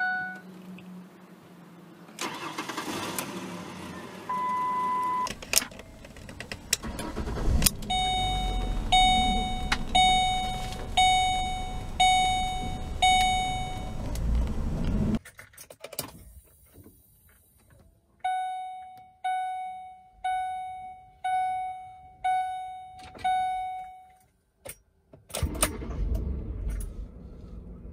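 Ford Explorer instrument-cluster warning chimes: bell-like dings at about one a second, each fading out, in two runs of six and seven from two different model-year clusters. An engine runs under the first run, and another engine starts near the end.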